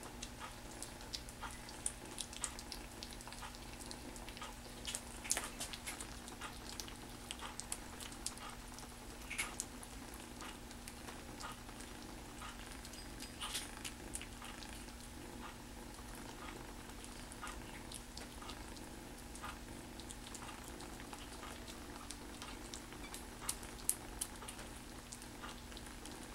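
Kitten licking and lapping wet cat food off a plastic spoon: many scattered small clicks and smacks at an irregular pace, over a steady low hum.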